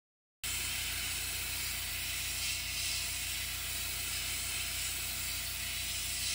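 Airbrush spraying paint: a steady hiss of compressed air, with a low steady hum beneath it. It starts abruptly about half a second in.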